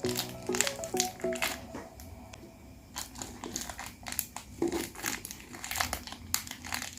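Plastic packaging crinkling and crackling in a run of small irregular rustles as a pack of super clay is handled. Light background music plays for about the first second and a half, then stops.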